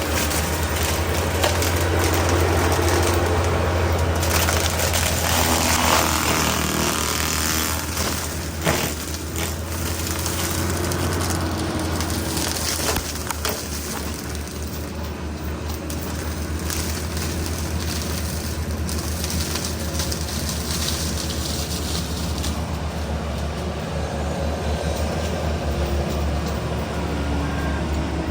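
Yanmar ViO55 excavator running a FEMAC T9 mulcher head shredding undergrowth: a steady low machine hum under the noise of the spinning drum, with wood cracking and crushing a few times.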